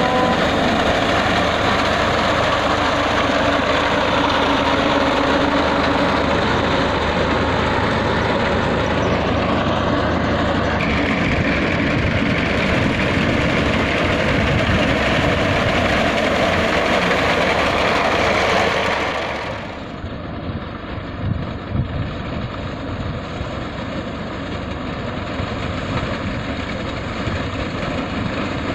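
Al-Ghazi tractor's diesel engine running steadily while its front-mounted reaper cuts wheat. About two-thirds of the way through, the sound drops and turns duller as the tractor is farther off.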